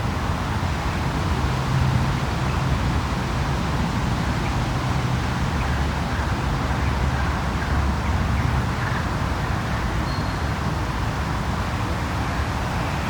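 Steady city ambience dominated by distant road traffic: a continuous low rumble of cars with no single vehicle standing out.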